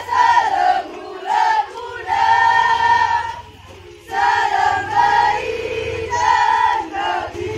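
A group of girls' voices singing together in unison in short held phrases, with a brief break about three and a half seconds in.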